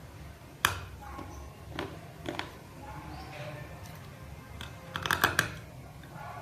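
Raw multani mitti (Fuller's earth clay) chunks crunching as they are bitten and chewed close to the microphone. There are separate crisp crunches under a second in and around two seconds in, then a quick cluster of crunches about five seconds in.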